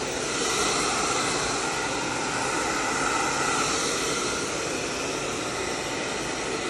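Hair dryer running steadily, a rush of air with a constant faint whine, blowing wet acrylic paint across a canvas.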